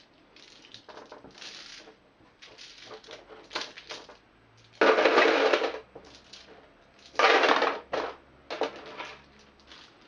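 Small plastic game dice being scooped up by hand and dropped into a plastic box insert, clattering. Soft clicks and rattles throughout, with two louder clatters about five and seven seconds in.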